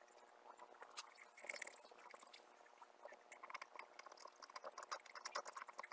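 Faint scratching and ticking of a craft knife blade scraping excess dried acrylic paint off a painted polymer-clay wine glass, in many small irregular strokes that grow busier towards the end.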